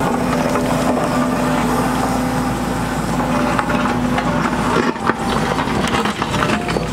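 John Deere 135P excavator's diesel engine running steadily, with scattered knocks and clanks from the machine at work that become more frequent in the last couple of seconds.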